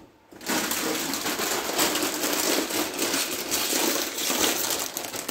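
A bag of tortilla chips being handled, crinkling and rustling, starting about half a second in.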